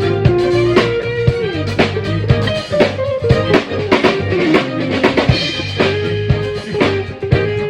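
A live rock band playing an instrumental passage during a sound check: a drum kit keeps a steady beat of snare and kick hits under a bass line, with a held melody line that slides in pitch.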